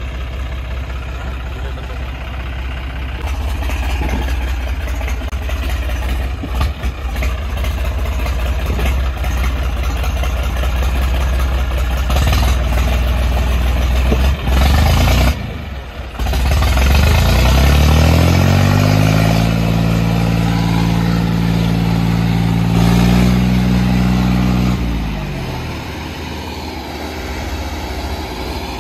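Diesel tractor engines of a John Deere 5050 and a Sonalika 750 running hard while chained together in a pulling contest. After a brief break about halfway, an engine revs up over a few seconds, holds high revs for several seconds, then drops back near the end.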